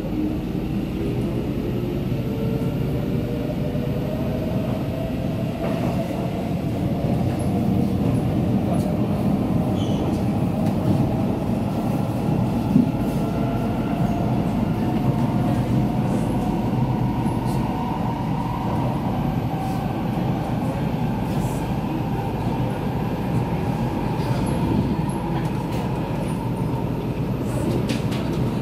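Inside an SMRT C751B metro car (Kawasaki Heavy Industries / Nippon Sharyo) accelerating away from a station: the traction motor whine rises steadily in pitch for about the first twenty seconds, then levels off. Steady rumble of the wheels on the rail runs beneath it.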